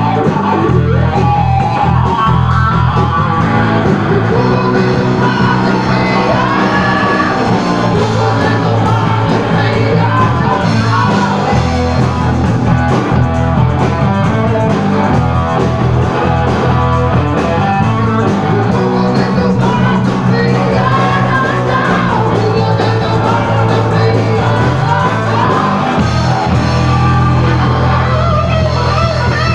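Blues-rock band playing live: electric guitar, bass and drums, with singing over them.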